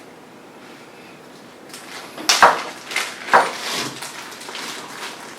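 A few hard knocks and clatters of objects being handled and set down on a table, between about two and four seconds in, with some rustling between them.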